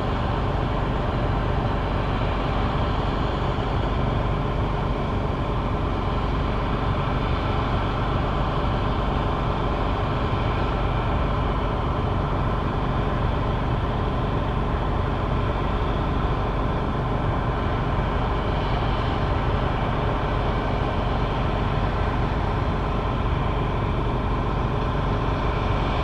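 Claas Lexion 780 TerraTrac combine harvester running steadily under load while harvesting: an even, unchanging engine and threshing-machinery drone with a steady whine on top.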